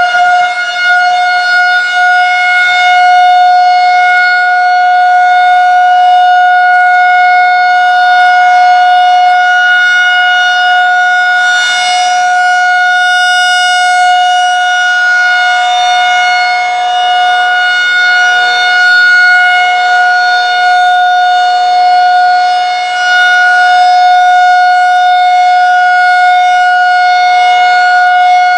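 Federal Signal 2001-SRN rotating electromechanical tornado warning siren sounding a loud steady tone during its monthly test, its loudness swelling and dipping slightly as the horn turns.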